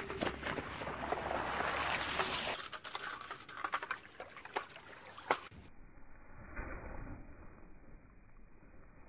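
Water swishing and splashing as a small toy is reeled across a muddy puddle on fishing line, loudest in the first two seconds, with a few sharp clicks, then fainter and duller in the second half.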